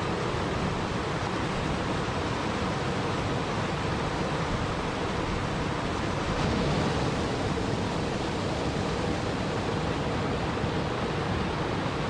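Small waterfall cascading over rocks into a river: a steady rush of splashing water.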